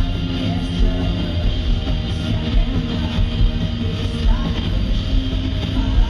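Live rock band playing loudly in an arena: distorted electric guitar, bass and drums, recorded from the audience through a small camcorder microphone.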